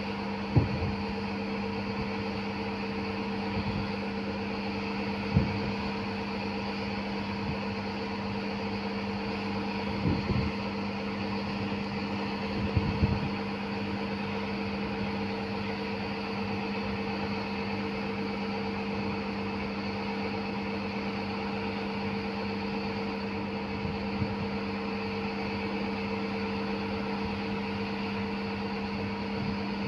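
Zoomlion truck crane's diesel engine running steadily with a constant hum, with a few short knocks in the first half.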